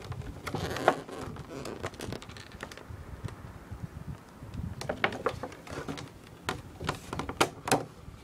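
Clear plastic packaging of a card collection box being handled, with scattered crinkles and clicks: a cluster about a second in and a run of sharper clicks from about five seconds in.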